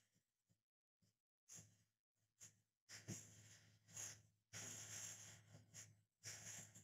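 Faint puffs of air blown through a plastic drinking straw, pushing drops of alcohol ink across vellum paper. A few short puffs come first, then longer, steadier blows from about three seconds in.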